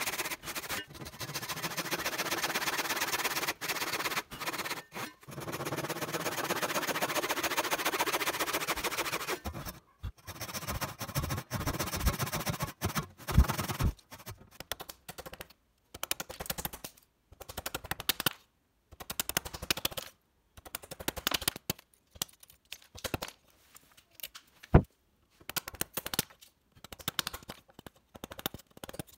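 Hand woodworking on small wooden joint pieces: a steady scraping or rasping for about ten seconds, then irregular sharp wooden clicks and knocks.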